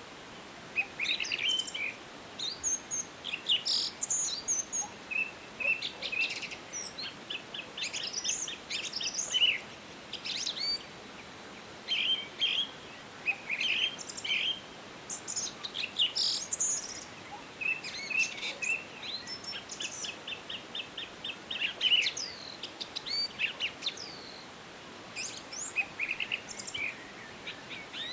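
Forest songbirds singing and calling: a steady run of short chirps and quick trilled phrases, over a faint even background hiss.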